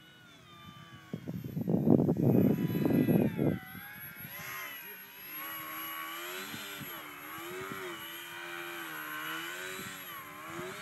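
Electric motor and propeller of a Depron foam RC plane whining, its pitch rising and falling constantly with the throttle. About a second in, a loud low rumble lasts about two and a half seconds.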